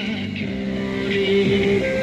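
Background music with held melody notes, the pitch moving in steps.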